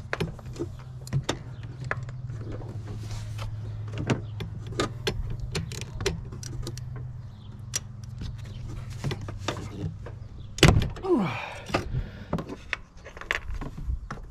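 Metal spark plug tools and a socket extension clicking and knocking against engine parts as they are worked down toward the spark plugs, over a steady low hum that stops about halfway through. There is one louder knock and scrape about three-quarters of the way in.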